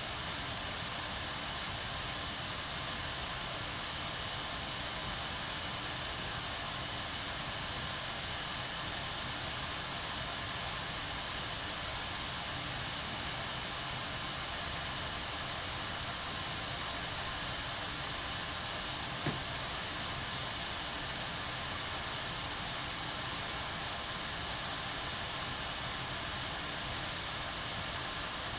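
Kettle boiling: a steady, even hiss and rumble with no change in level, broken only by one small click about two-thirds of the way through.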